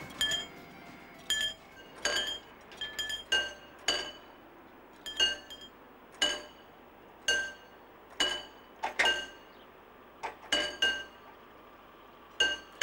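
Level-crossing warning bell striking irregularly, roughly once a second, each strike ringing on with a clear bright tone. It sounds as the crossing barriers are lowered ahead of a train.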